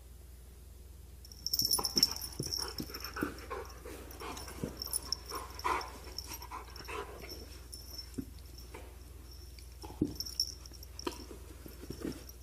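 A dog whining in a thin high pitch, mixed with short clicks and brief noisy sounds, starting about a second and a half in.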